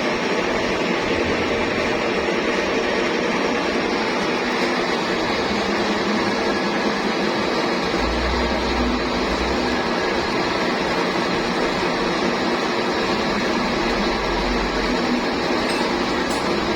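Metal lathe running steadily in a machine shop, a continuous mechanical hum with a low rumble swelling briefly twice.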